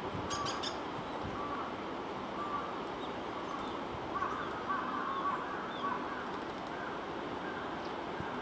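Crows cawing: a series of short calls, several of them bunched together around the middle. The uploader takes this cawing for a warning of an earthquake.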